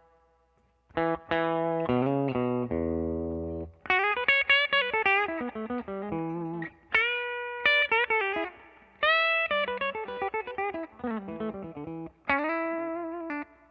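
Clean electric guitar played through a Universal Audio 1176 compressor pedal with the compression engaged: picked chords and single notes with string bends, after a brief pause at the start.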